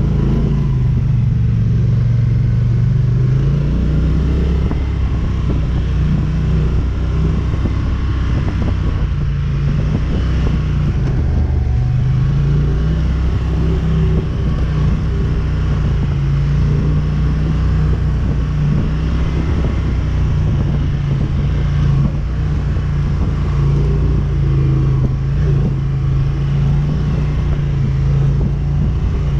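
ATV engine running steadily as the quad is ridden, its pitch rising and falling gently with the throttle, over a constant low rumble.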